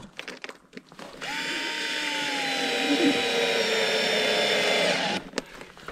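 Cordless drill-driver running for about four seconds, driving a screw through a conduit clip into a wooden post; its whine sags slightly in pitch as it runs. A few light clicks come before it starts.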